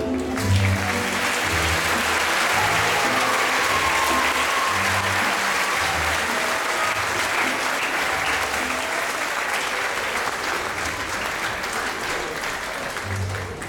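Audience applauding at the end of a stage dance performance, with the music still playing underneath; the clapping starts right at the beginning and dies down near the end.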